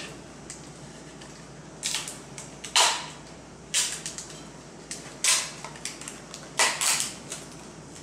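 Plastic packaging being torn open and crinkled by hand in a handful of sharp crackling bursts, the loudest about three seconds in.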